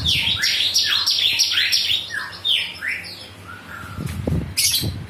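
Bird chirping in a rapid run of quick falling notes for about three seconds, then thinning out. A few low knocks and a brief rustle come near the end.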